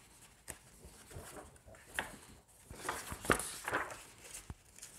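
Paper pages of a hardcover book being turned by hand: a series of soft rustles and flicks, busiest and loudest a little past the middle.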